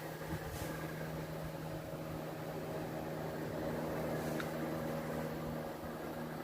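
Carrier window-type air conditioner running: a steady low hum over even fan noise.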